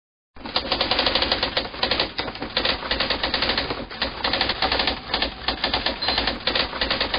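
Typewriter keys clattering rapidly in a continuous run, with a brief high ring about six seconds in.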